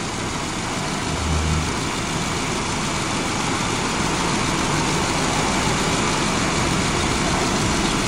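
2005 Subaru Forester's flat-four engine idling with the air conditioning on, heard close from the open engine bay as a steady, noisy hum, while refrigerant is fed in from a recharge can. A deeper hum swells briefly about a second in.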